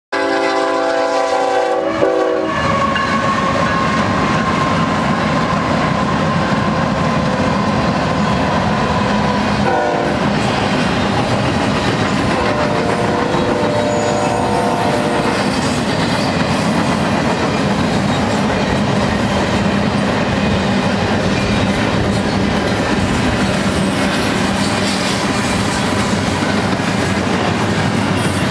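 A BNSF double-stack container train led by GE ES44C4 locomotives passes. The multi-chime horn sounds at the start and cuts off about two seconds in, then gives a short blast around ten seconds in and a fainter one a few seconds later. Under the horn is the steady rumble and wheel clatter of the loaded well cars rolling by.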